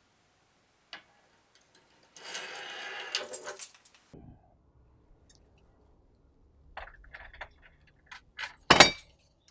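A bunch of house and car keys jangling as a wire hook through the letterbox lifts them off a wooden shelf. Later come light clicks and rattles at the metal letterbox, ending in one loud, sharp metallic clack near the end.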